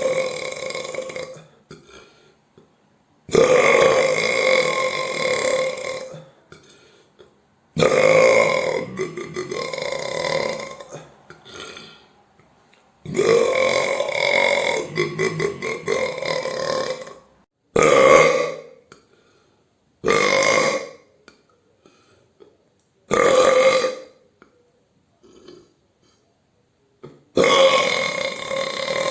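A run of loud human burps, one after another with short silences between: several long, drawn-out belches lasting a few seconds each, then shorter ones under a second.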